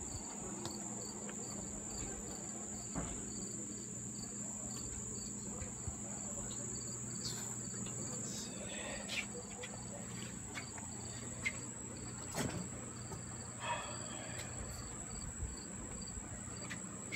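Insects chirping in a steady chorus: a continuous high buzz with a regular, quick pulsed chirp about three times a second. A few light clicks and knocks come and go over it.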